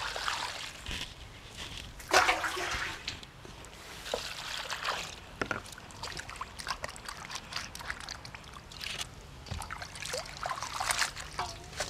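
Water poured from a jug into a steel bowl of vegetables, then hands sloshing and rubbing the vegetables in the water, with the loudest splash about two seconds in.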